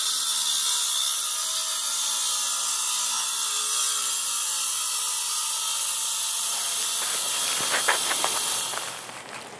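Handheld angle grinder with a diamond blade cutting into a stone block: a loud, steady, hissing grind that fades away near the end.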